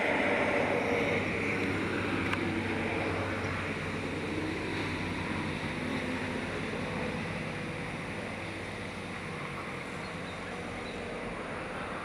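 Steady outdoor background noise, a low rumble with a faint engine-like hum, most likely passing traffic and wind on the microphone. It is loudest in the first second or so and eases off slowly.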